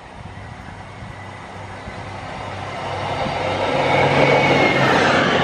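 Northern Class 150 Sprinter diesel multiple unit approaching and passing close by. Its diesel engine note and wheel-on-rail noise grow steadily louder and peak near the end.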